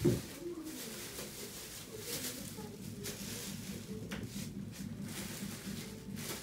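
Plastic grocery bags rustling and vegetables being handled on a kitchen counter, in scattered short crinkles. A faint, low, wavering pitched sound runs underneath.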